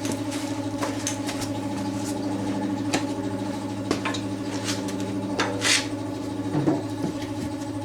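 A motor hums steadily, with several sharp knocks and a short scrape from handling the tire and rim.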